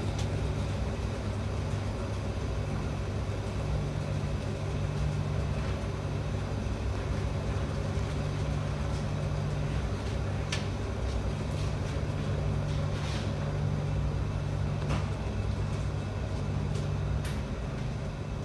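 Large commercial washing machine running with a steady low motor hum that swells and eases in stretches, with a few sharp clicks in the second half.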